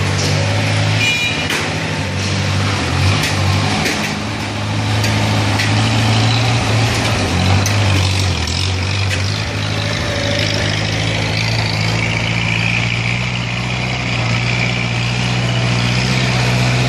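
Hydraulic baler's power unit running: a steady machine hum whose pitch steps up and down as the load changes, with scattered clicks and rattles in the first few seconds.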